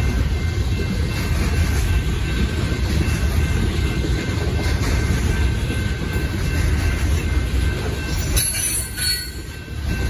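Freight train's coal hopper cars rolling past: a steady low rumble of steel wheels on rail, with a thin, steady, high wheel squeal above it. The rumble dips briefly near the end.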